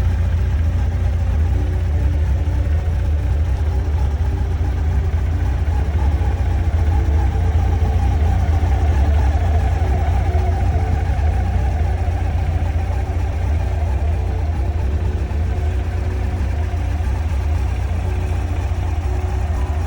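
1993 Honda CBR900RR's inline-four engine idling steadily.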